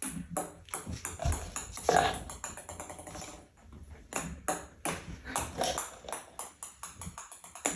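Light clicks and taps of a ping-pong ball bouncing on a wooden table and plastic cups, with a short dog vocalisation about two seconds in that is the loudest sound.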